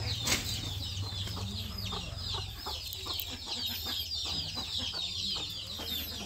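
Many birds chirping in quick, high, falling notes, the calls overlapping almost without pause, over a steady low rumble.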